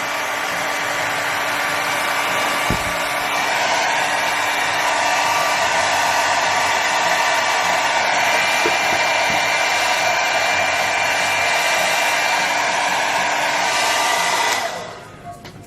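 Hair dryer blowing steadily, then switched off near the end.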